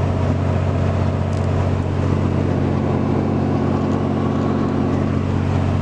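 Diesel pickup truck cruising at about 65 mph in fifth gear with tow/haul mode engaged, heard from inside the cab: a steady, even engine drone with road noise.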